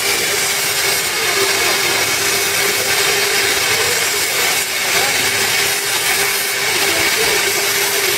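CNC plasma torch cutting steel plate: a steady, loud hiss of the plasma arc with a steady high tone running through it.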